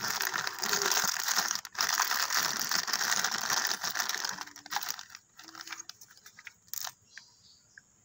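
Close handling noise from hands working with small parts right by the microphone: a dense crackling rustle for about four and a half seconds, then a few scattered light clicks and taps.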